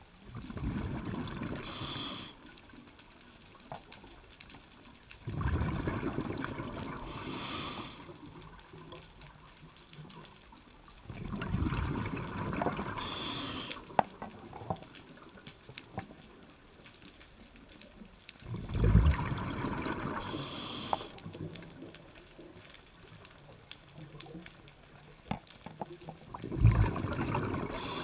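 A scuba diver's breathing heard underwater: exhaled bubbles from the regulator gurgle and rumble in five bursts of two to three seconds, about every six to seven seconds, with quieter gaps between breaths.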